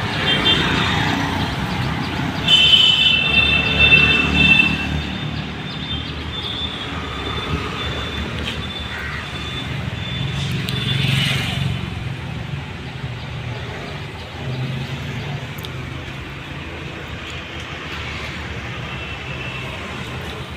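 Road traffic: a steady rumble of vehicle engines and tyres, with a brief high steady tone, like a horn or whistle, about two and a half seconds in.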